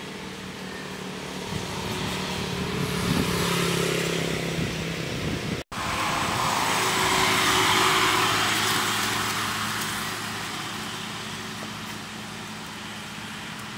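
Road traffic: a vehicle engine hum with a rushing sound that swells and fades twice, as if vehicles were passing. The sound drops out for an instant about halfway through.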